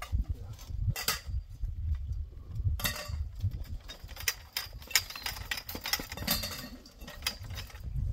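Metal tent-frame tubes and wooden poles knocking and clinking as the frame is fitted together: scattered sharp taps, busier about three seconds in and again from about five to six and a half seconds in, over a steady low rumble.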